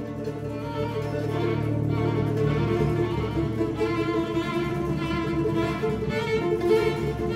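Background music on bowed strings: violin over low, cello-like held notes, swelling slowly.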